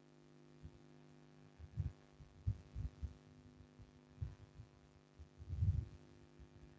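Steady low electrical hum, with a handful of dull, low, irregular thumps and rubs; the loudest comes near the end.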